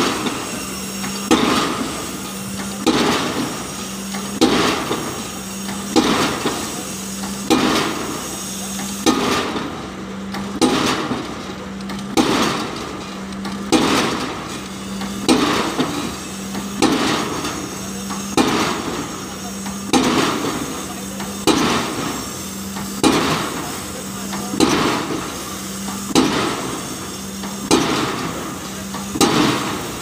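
Diesel pile hammer driving a PHC spun concrete pile, with a sharp blow about every second and a half in a steady, even rhythm over a constant low hum. The blows stop near the end.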